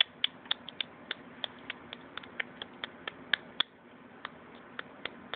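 Light, sharp clicks of a thin metal needle working yarn, about three to four a second and uneven, thinning to a few scattered clicks in the last second or two.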